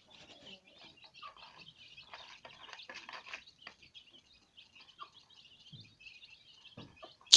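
A brood of Aseel chicks peeping continuously in a high-pitched chatter, with a few faint clicks mixed in. Loud music cuts in at the very end.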